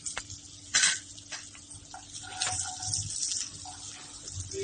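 Butter sizzling as it melts in a hot non-stick kadai, hissing with irregular crackles and pops and one sharper spatter about a second in. A wooden spatula scrapes through it near the end.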